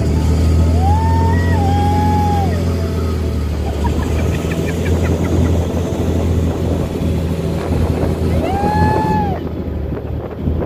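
Motorboat engine running with a steady low hum while towing a banana boat. A person cries out twice in long high calls, once near the start and once near the end.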